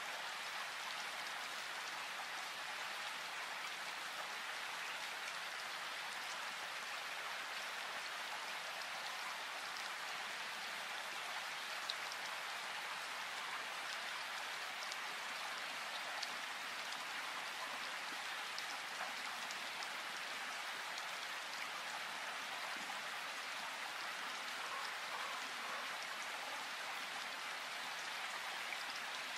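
Steady rain falling in a forest: a continuous, even hiss with a few individual drops ticking out of it now and then.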